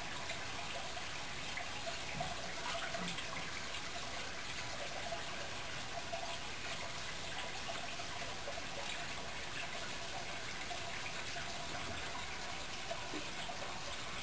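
Aquarium water trickling and bubbling steadily.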